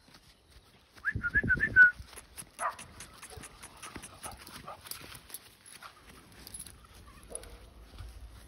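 Cane Corso puppy giving a quick run of about six high-pitched yips about a second in, then a few softer whines, over rustling and brief thumps.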